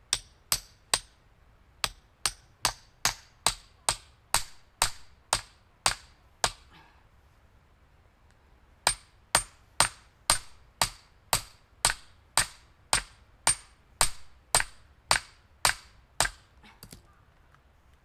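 A steel firewood-splitting wedge being struck again and again with a hammer to drive it into a log: sharp ringing metallic knocks about two to three a second, in two runs with a pause of about two seconds between them.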